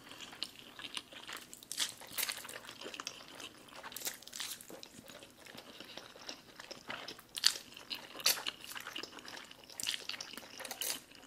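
Black bean noodles (jjajangmyeon) being slurped and chewed, a string of short, irregular slurps and wet eating sounds.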